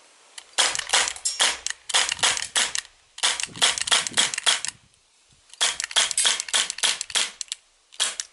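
Legends Makarov Ultra, a full-metal CO2 blowback BB pistol, fired in quick strings of shots: sharp cracks coming a few to the second, with short pauses between strings and a longer one about halfway through.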